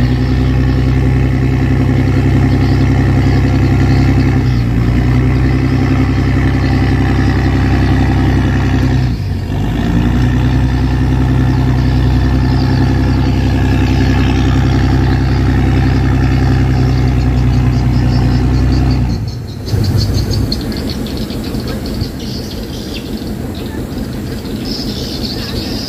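Heavy diesel engine running steadily under load, dipping briefly about nine seconds in. About twenty seconds in it cuts off abruptly, leaving a lighter, rattly engine sound.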